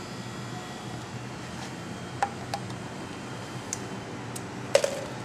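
Light clicks and knocks of plastic lab gear handled on a lab bench, including a micropipette being set down, over a steady room hum. The sharpest cluster of clicks comes near the end.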